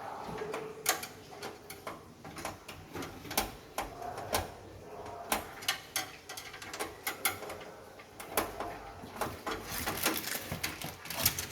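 Irregular small clicks and knocks of hands working inside a desktop PC case, detaching and shifting parts to make room for a graphics card.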